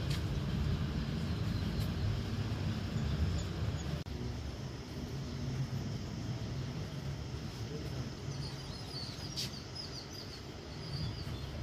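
Steady low background rumble, with small birds chirping several times in the later seconds.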